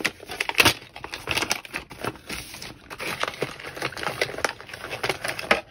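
Diamond-painting tool-kit pouch crinkling and rustling as it is handled and opened, with many small irregular crackles and clicks.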